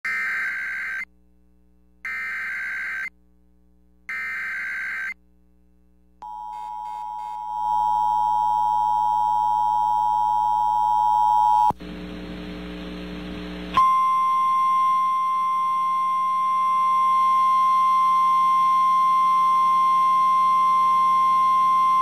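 Emergency Alert System tornado warning on FM radio: three one-second bursts of screeching digital header data, then the two-tone EAS attention signal held for about five seconds. After a brief patch of static, a single steady tone, the NOAA Weather Radio 1050 Hz warning alarm, starts about 14 seconds in and carries on.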